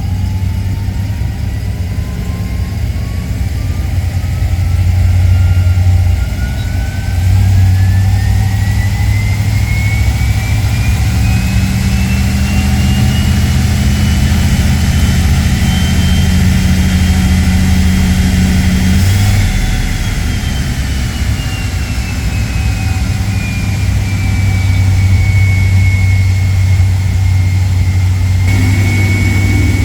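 Ford 302 V8 of a Thunderbird being run on a chassis dyno: a wide-open-throttle pull with a rising whine that climbs steadily for about 19 seconds, then the throttle is released and the pitch falls away as the rollers coast down to a steady lower speed.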